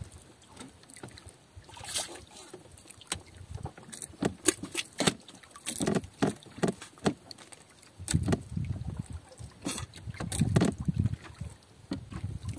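Water lapping and slapping against a small fishing boat's hull, with scattered knocks and clicks; the low sloshing gets louder from about eight seconds in.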